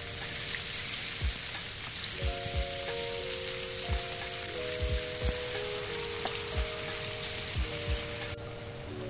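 Oyster mushrooms sizzling in hot oil in a square nonstick egg-roll pan as they stir-fry, the hiss dropping off sharply near the end. Gentle piano background music plays over it.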